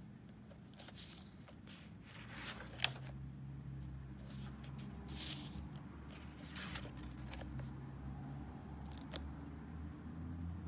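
Paper pages of a spiral-bound sketchbook being turned by hand: a few rustling swishes, with a sharp paper snap about three seconds in, the loudest sound.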